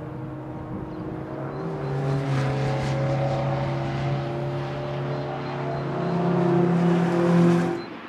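Several racing cars' engines run hard through a bend, overlapping engine notes that climb slowly in pitch and grow louder. The sound peaks shortly before the end, then cuts off abruptly.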